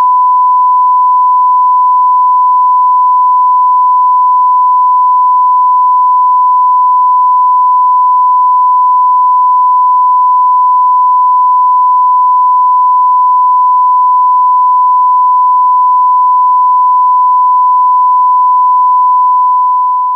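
A continuous electronic tone held at one steady pitch, a plain beep-like sine tone, beginning to fade out right at the end.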